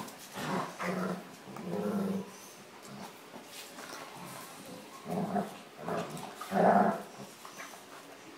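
Young German shepherd and pit bull play-fighting, growling in short bouts: a few in the first two seconds, then louder ones between about five and seven seconds in.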